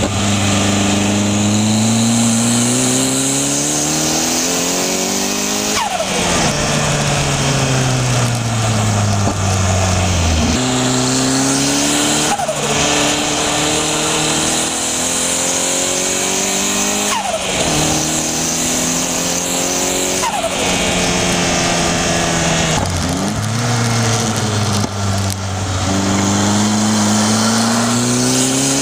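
Locost kit car's turbocharged Nissan CA18DET four-cylinder engine pulling hard, heard from the open cockpit. Its pitch climbs through each gear and drops sharply at each shift or lift, several times over, with steady wind and road noise.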